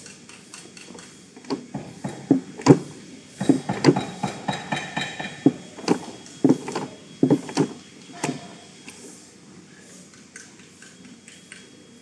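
Hand-operated bench cold pressure welding machine clacking as its dies clamp and press 1.0 mm wire ends together: a quick, irregular run of sharp metallic clicks and knocks for several seconds, which stops about two-thirds of the way through.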